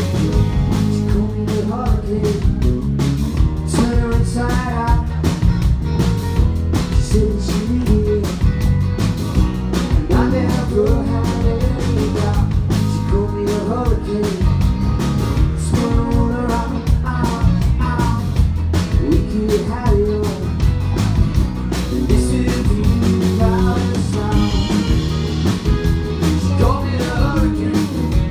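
Live band playing a song: a man singing over strummed acoustic guitar, electric guitar and keyboards, with a steady beat.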